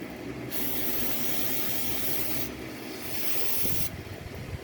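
Aerosol brake cleaner spraying with a steady hiss, blasting a dirty VVT filter clean. The spray pauses briefly near the start, runs for about two seconds, weakens, and stops shortly before the end.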